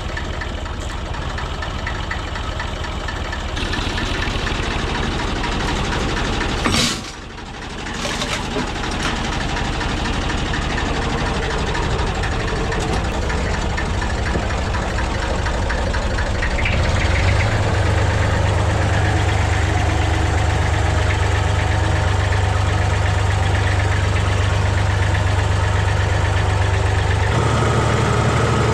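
Excavator's diesel engine running steadily. About a quarter of the way in there is a brief sharp noise and the sound drops for a moment; a little past halfway the engine gets louder into a steady low drone, as if working harder.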